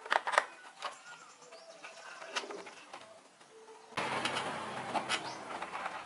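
Light clicks and knocks from a screwdriver working at a moped's plastic handlebar housing, loudest in the first half second, with a dove cooing in the background.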